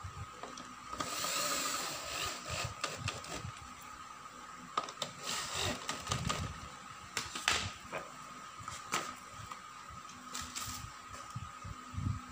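Electric drill used as a screwdriver, running in short bursts to drive the screws that fix an office chair's armrest to the seat. Clicks and knocks of the parts being handled come between the bursts.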